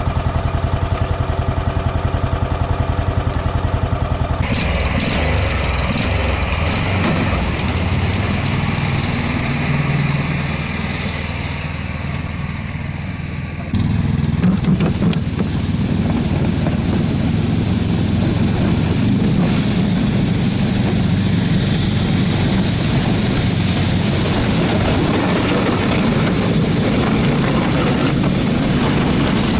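Small petrol engine of a Barbos tracked motorized snow tow running steadily, at an even idle at first and picking up revs about four seconds in. About fourteen seconds in the sound jumps louder and rougher as the machine runs under load, towing a sled.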